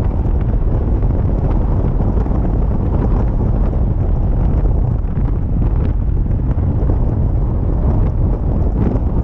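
Steady wind buffeting on the microphone over the low rumble of a vehicle driving along the road.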